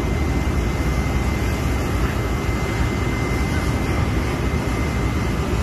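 Steady, loud rushing rumble from a container-ship fire being doused by water-cannon jets, with no distinct knocks or bangs.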